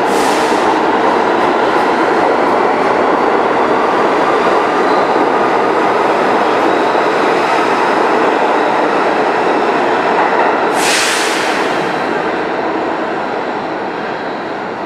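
New York City Subway C train pulling out of an underground station and running off down the tunnel. Its wheels and motors make a loud, steady rumble that begins to fade after about ten seconds, with a brief hiss just as it starts to fade.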